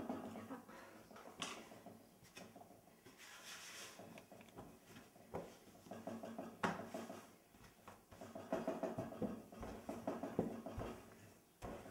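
Wooden rolling pin rolling out soft yeast dough on a wooden tabletop: faint, uneven rubbing and rumbling, broken by a few sharp knocks of wood on wood as the pin is put down and picked up.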